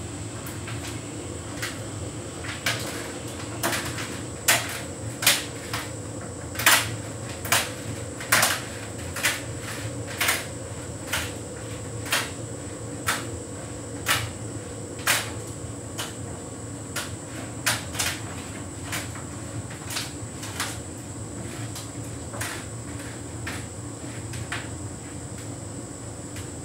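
Hotpoint heat pump tumble dryer running a synthetics cycle: a steady machine hum, with sharp knocks about once a second as the drum turns, loudest through the middle stretch and fading toward the end.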